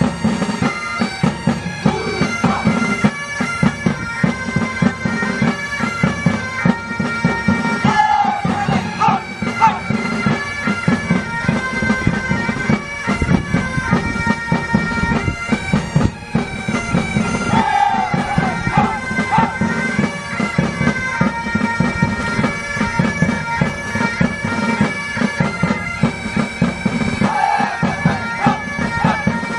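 Military pipe band playing: bagpipes carry a tune over their steady drones, with drums beating quickly beneath.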